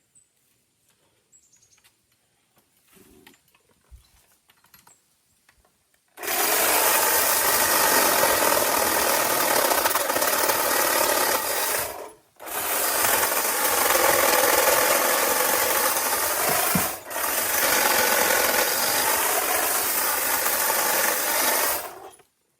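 A small electric tree-trimming power tool, run in three bursts of about six, five and five seconds. Each time the trigger is released it stops briefly and completely before starting again.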